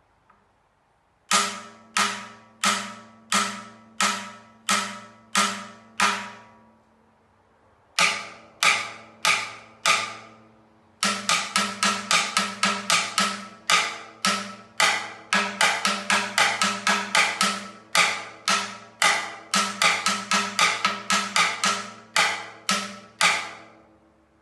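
Timbales being played: ringing metal-shelled drum strokes, first single hits spaced evenly a little over half a second apart, then after a short pause a faster, busier rhythm of many strokes that runs until near the end.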